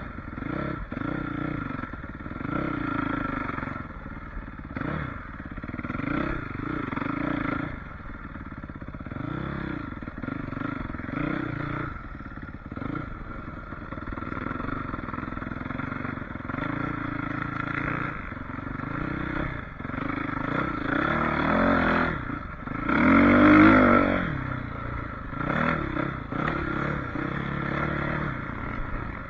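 Suzuki RM-Z450 four-stroke single-cylinder motocross bike ridden hard on a trail, its engine revving up and falling off again every second or two as the throttle is worked over the bumps. The loudest rev comes about three quarters of the way through.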